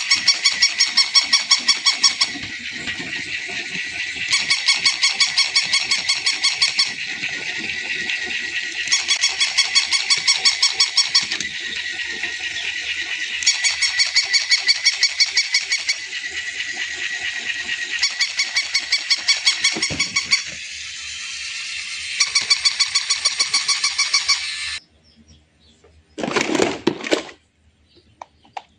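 Battery-operated electronic toy playing a repeating sound effect: bursts of rapid high-pitched pulses, each about two seconds long, alternate with a steadier high tone. It cuts off suddenly about 25 seconds in, followed by a brief clatter.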